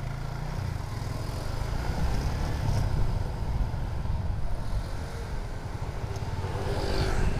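A motorcycle riding along a road: its engine running with a heavy, uneven low rumble of wind on the microphone, getting a little louder about two seconds in.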